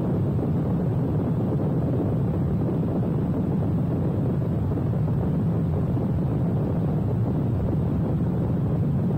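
Freefall wind rushing over a skydiver's camera microphone: a loud, steady, low rush of air that holds unchanged throughout.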